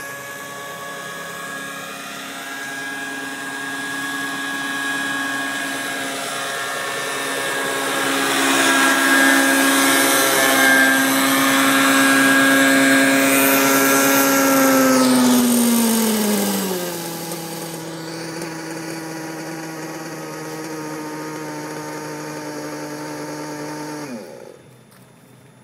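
Radio-controlled scale MD 500 helicopter's motor and rotors: a steady whine with a pitched buzz that grows louder as it hovers in close. About fifteen seconds in the pitch drops as it is throttled back after landing, runs lower and steady, and cuts off near the end as it is shut down.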